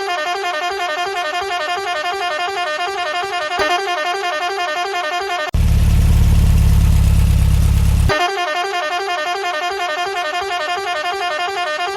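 Minibus horn sounding continuously with a fast warbling, musical pitch. About five and a half seconds in it gives way to a loud, deep, distorted blast lasting about two and a half seconds, then the warbling horn returns.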